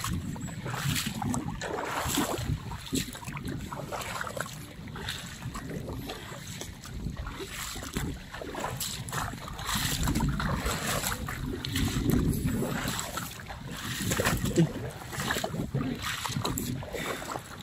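Wind buffeting the microphone in gusts, with irregular splashing and sloshing of shallow sea water.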